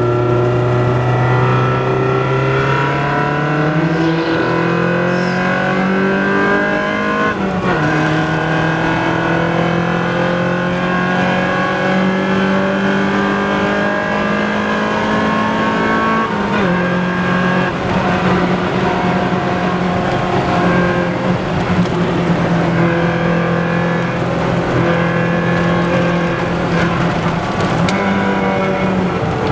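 BMW M3 E30's four-cylinder engine driven hard: its pitch climbs steadily under acceleration and jumps with each gear change, several times.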